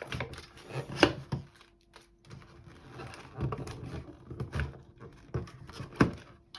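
Handling and crimping a glossy-paper fruit snack wrapper: paper rustling with scattered sharp clicks and knocks, the loudest about a second in and another near the end.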